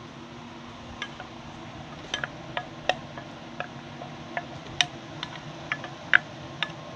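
Wooden spoon scraping ketchup out of a glass measuring cup into a pot: irregular light clicks and taps of wood against glass, over a faint steady hum.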